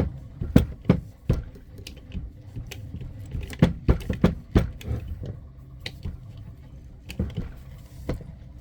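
Irregular clicks and knocks of copper cable and a metal lug being handled and fitted together, some in quick clusters about three to four seconds in.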